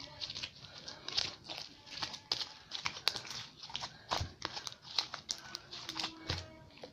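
Slime being squeezed and worked in the hands, making irregular crackling clicks and small pops.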